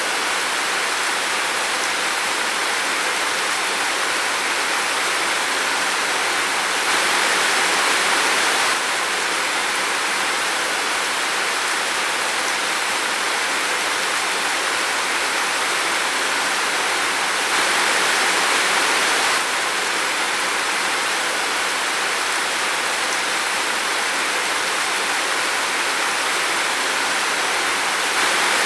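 Steady heavy rain falling in a forest, a dense, even hiss that swells slightly about every ten seconds.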